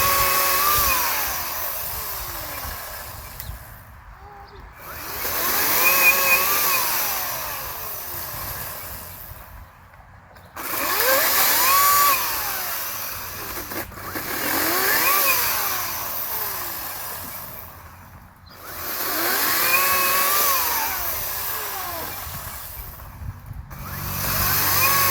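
Ryobi 40-volt 18-inch battery chainsaw cutting seasoned apple firewood. The trigger is pulled about five times, and each time the motor whine rises, holds through the cut, then winds down, with short pauses between.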